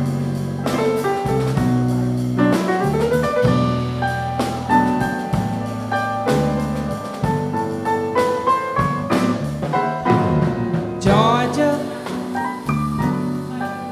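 Live jazz piano playing the introduction with light drum kit accompaniment. A woman's singing voice comes in with vibrato near the end.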